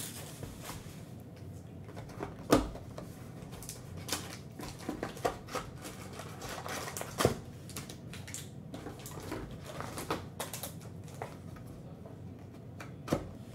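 Plastic shrink-wrap crinkling and a cardboard trading-card hobby box being handled and its lid flap opened: scattered crackles, taps and scrapes.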